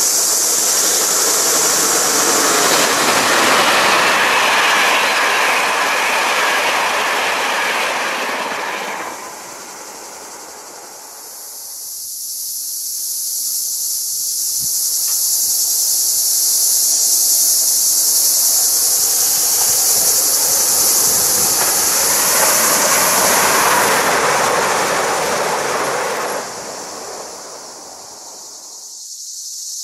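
Two electric trains pass in turn on an electrified main line. The first is a HellasSprinter class 120 electric locomotive hauling an InterCity train, loud at first and cut off about nine seconds in. The second is a Siemens Desiro class 460 electric multiple unit, which builds up to its pass and then drops away near the end. A steady high insect buzz runs throughout.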